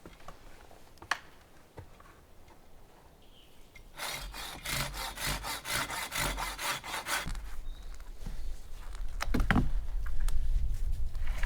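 Hand saw cutting wood: a run of quick, even back-and-forth strokes, about four a second, lasting about three seconds and starting roughly a third of the way in. A low rumble builds in the second half, with a knock or two.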